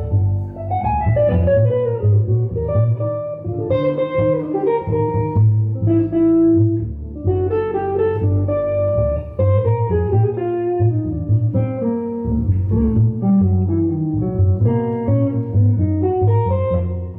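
Live jazz played on a semi-hollow electric guitar over a plucked upright double bass, the guitar running quick melodic lines that often fall in pitch.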